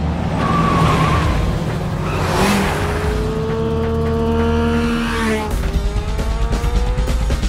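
Sport motorcycle engine revving hard, its pitch climbing and holding as it accelerates, with a rushing pass-by sweep about two and a half seconds in.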